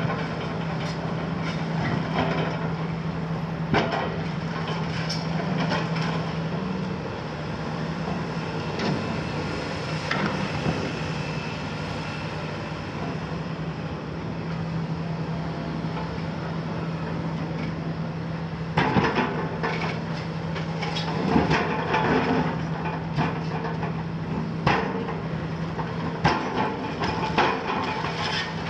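Hitachi 350-based Kiesel KMC 400 high-reach demolition excavator running steadily, its Isuzu six-cylinder diesel humming, while its demolition grab breaks down a masonry wall. The concrete and brick crack and clatter down in a string of knocks that get denser and louder about two-thirds of the way through.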